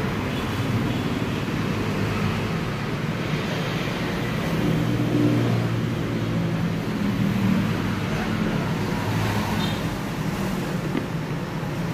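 Steady road traffic noise, engines running with a low hum that swells a little at times.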